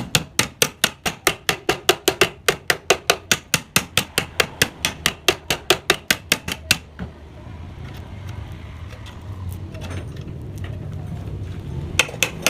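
Rapid, even hammer strikes on the metal of a Yamaha RX-King exhaust muffler, about four or five a second, as the muffler is worked open. The strikes stop about seven seconds in, leaving a low rumble, and start again near the end.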